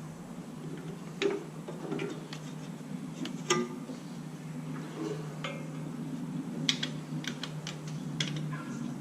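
Scattered light clicks and metallic clinks of ignition leads and plug caps being handled and fitted on the engine, with a quick run of several clicks about seven to eight seconds in. A steady low hum runs underneath.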